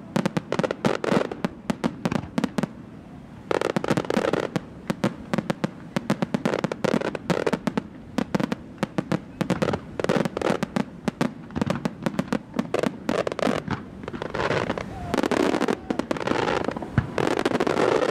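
Pirotecnia Hermanos Caballer fireworks display: a rapid, dense run of bangs from bursting shells, thickening into stretches of continuous crackle a few seconds in and again near the end.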